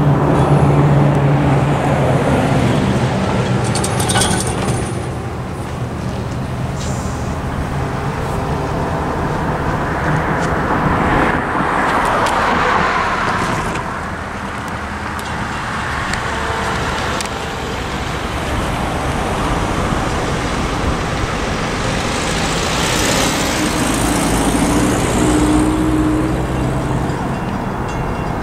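Road traffic on a two-lane highway: cars and pickup trucks driving past one after another, tyre and engine noise swelling and fading with each pass.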